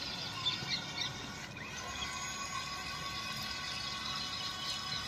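Small electric motors of a toy RC rock-crawler car giving a steady high whine, several tones at once, as it drives through water on PVC-pipe floats.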